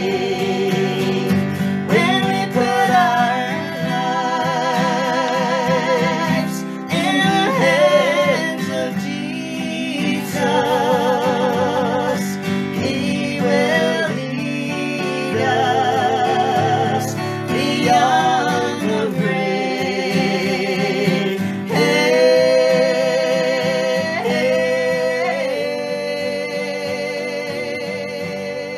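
A man and a woman singing a country gospel song together, the man strumming an acoustic guitar. The sung notes waver with vibrato, and near the end a long note is held while the sound slowly fades.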